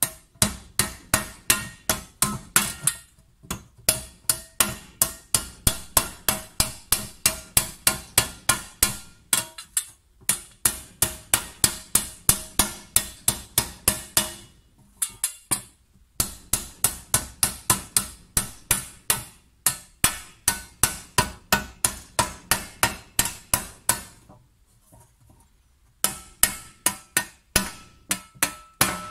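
Metal hammer striking a copper tray held over a wooden stake, raising the copper in quick, even blows of about four a second, each one ringing. The hammering stops briefly a few times and pauses for about two seconds near the end before starting again.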